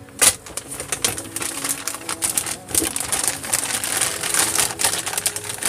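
Clear plastic parts bags crinkling and rustling as they are lifted and handled, a dense run of crackles with one sharp crackle just after the start.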